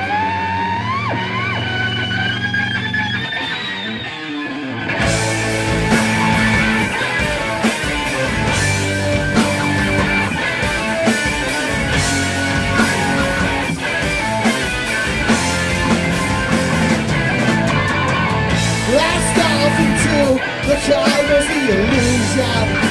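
Stoner/doom rock band playing loud heavy music. Swooping, rising tones ring over a held chord at first, then drums and cymbals come in about five seconds in with heavy distorted electric-guitar riffing.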